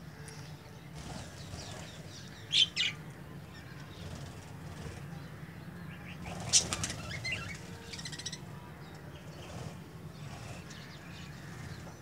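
Flock of budgerigars chirping and chattering, with wings fluttering. Two loud sharp sounds come about two and a half seconds in and another about six and a half seconds in.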